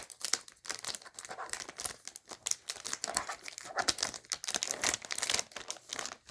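Packaging wrap being pulled off a new keyboard, crinkling and rustling in quick irregular crackles.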